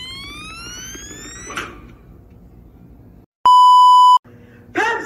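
A long high squeal that climbs steadily in pitch as a stress toy is squeezed. After a moment of dead silence comes a loud, steady test-tone beep lasting under a second, the tone that goes with colour bars.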